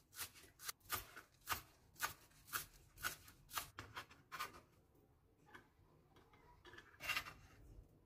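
Kitchen knife slicing green onions on a wooden cutting board: faint, even knocks of the blade on the board about twice a second for the first four seconds or so. A brief scrape about seven seconds in, as the chopped onion is gathered up on the knife.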